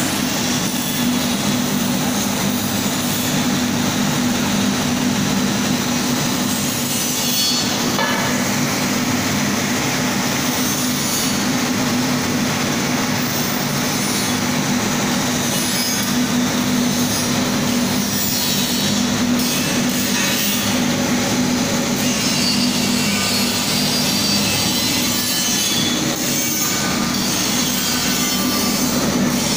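Compact blown film plant running: a steady machine din with a constant low hum underneath.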